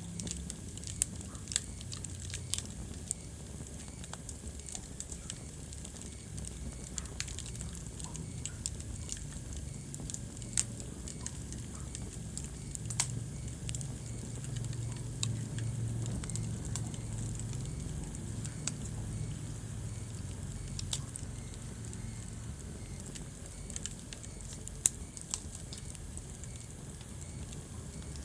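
Wood fire crackling in a fireplace, with scattered sharp pops, a handful of them louder, over a low steady rumble.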